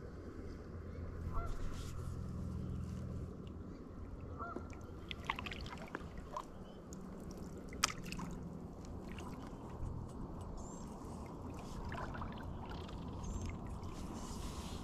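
Birds call a few times, in short curved calls, over a steady low hum. There are scattered clicks, with one sharp click a little past the middle.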